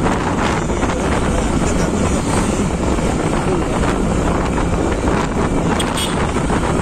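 Steady wind buffeting the microphone on a moving motorcycle, with the road and engine noise of the ride underneath.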